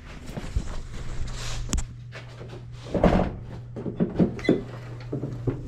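Several irregular knocks and thumps from handling and moving about, most of them between about three and five and a half seconds in, over a steady low hum.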